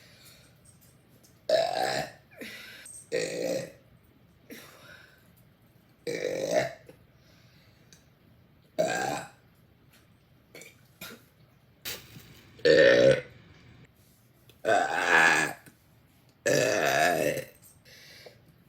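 A woman burping loudly, one big burp after another: about seven in all, each lasting under a second, with short pauses between them.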